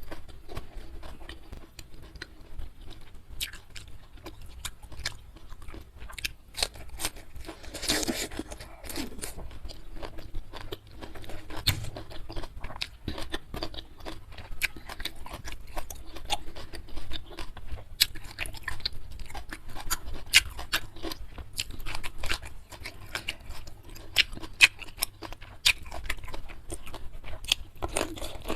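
Close-miked eating: steady chewing with frequent crunchy bites and sharp mouth clicks.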